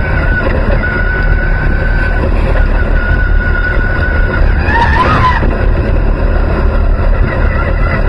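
Dirt late model race car engine running at low speed, heard from the cockpit as a loud, steady rumble with a steady whine over it. A brief wavering squeal about five seconds in.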